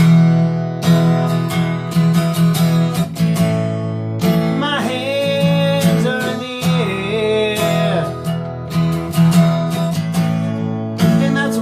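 Acoustic guitar strummed steadily in an instrumental break. A higher melody line glides above the chords between about four and eight seconds in.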